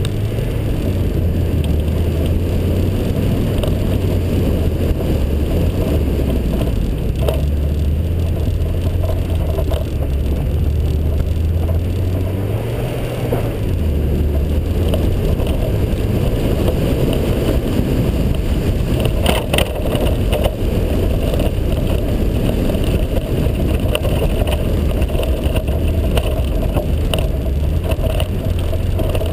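Mazda Miata's four-cylinder engine running under load on a snow rallycross course, its pitch rising and falling with throttle and gear changes. There are a few sharp clicks about two-thirds of the way through.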